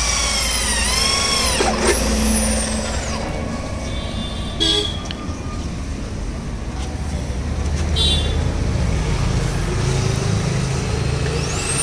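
Corded electric drill boring through the motorcycle's rear number-plate mount. The motor whine sags as the bit bites and winds down after about three seconds, two short blips of the drill follow, and it spins up again near the end.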